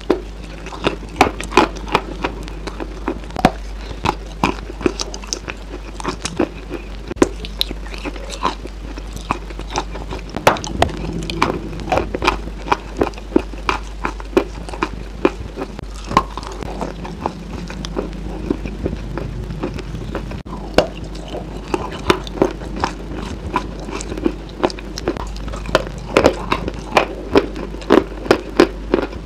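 Close-miked bites and chewing of a coated cheesecake-style dessert bar: a dense, irregular run of sharp crackly crunches and wet mouth clicks. A steady low hum runs underneath.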